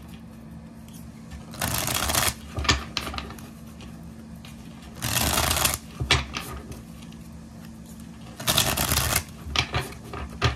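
A deck of tarot cards being riffle-shuffled by hand three times, each shuffle a brief fluttering burst, with light taps and clicks of the cards being squared between them.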